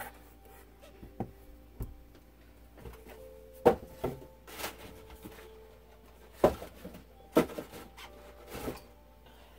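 Cardboard shipping box and its packing paper being handled and moved: scattered knocks and taps, about eight, the loudest a few seconds in, over a faint steady hum.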